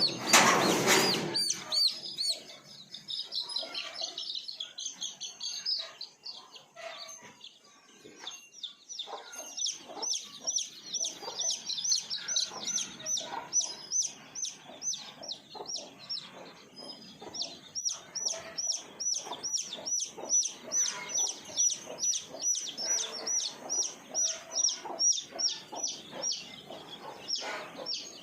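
A flock of desi chicks peeping continuously: many rapid, high-pitched chirps overlapping. A short loud noise comes at the very start.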